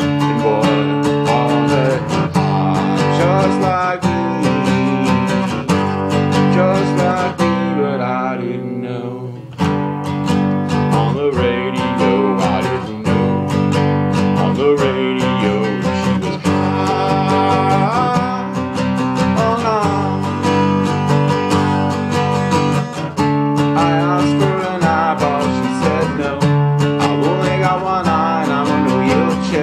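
Acoustic guitar strummed in steady chords. The strokes thin out for a moment about eight seconds in, then the strumming picks up again.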